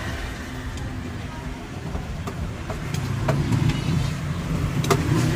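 A large knife slicing cooked beef on a round wooden chopping block, with a few sharp clicks as the blade meets the board, over a steady low rumble of street traffic.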